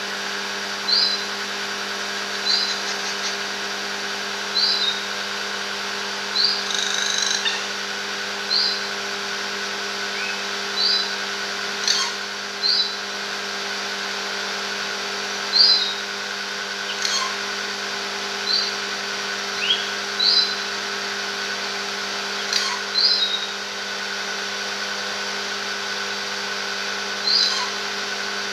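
Racket-tailed treepie (tangkar cetrong) giving short, high call notes that flick upward, repeated every second or two with a few longer pauses, over a steady mechanical hum.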